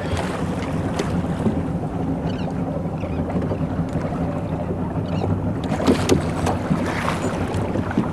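Boat motor running steadily, with wind noise on the microphone and a few sharp knocks about six seconds in.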